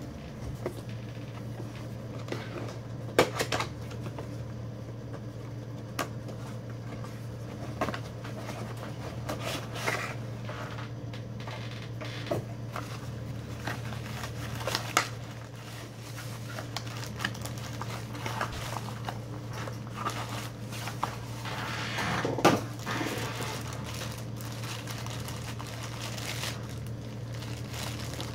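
Cardboard packaging and a plastic bag handled during unboxing: scattered rustling, crinkling and light knocks, over a steady low hum.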